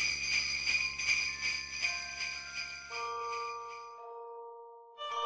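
Sleigh bells shaken in a steady rhythm, about three shakes a second, with held notes entering one after another beneath them. The bells fade out about four seconds in, and music begins just before the end.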